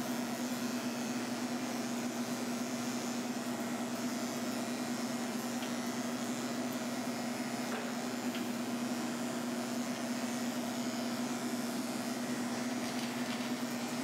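Corded electric dog clippers running with a steady, even hum as they are worked through a schnauzer puppy's matted coat.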